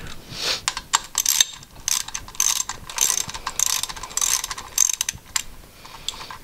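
Hand ratchet wrench clicking in repeated bursts of quick strokes as bolts are run down on a two-stroke jet ski engine. The clicking dies away about five and a half seconds in.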